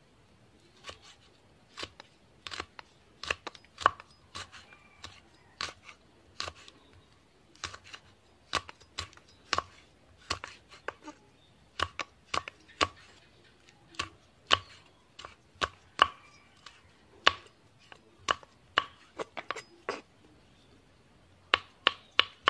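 Kitchen knife slicing fresh chillies on a thick wooden chopping board: sharp knocks of the blade on the wood at an uneven pace, some in quick pairs, coming faster near the end.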